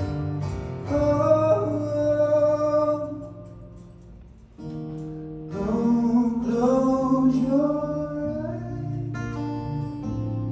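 A man singing long, held notes over his own strummed acoustic guitar in a live solo performance. About four seconds in the sound drops almost away for a moment before the guitar comes back and the voice rejoins.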